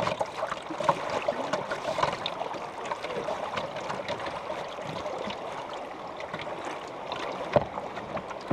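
River water gurgling and splashing against a canoe hull as it is paddled downstream, with small splashes from the paddle.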